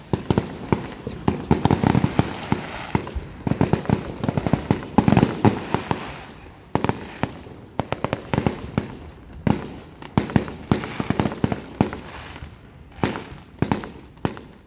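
Fireworks going off in rapid bangs and crackles, several fired at once, dense for the first several seconds and then thinning into separate bangs with a short burst near the end.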